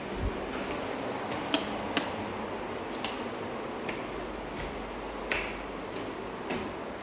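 Footsteps climbing tiled stairs: a handful of sharp clicks, roughly a second apart, over a steady background hiss.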